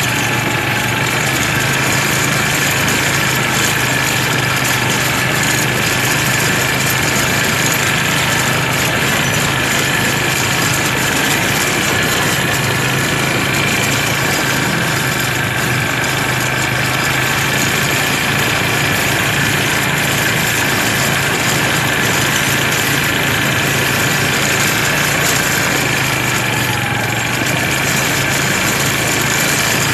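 ATV engines running steadily while riding along a dirt track, an even, unbroken engine sound.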